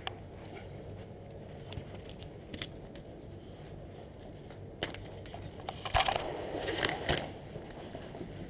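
Curtains being handled right against the camera: fabric rustling with a few light clicks, then a louder stretch of rustling and crackle about six to seven seconds in.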